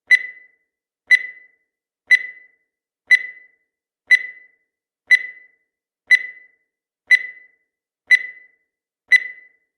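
Countdown timer sound effect: a short, high tick repeating steadily once a second, each tick ringing briefly before it fades.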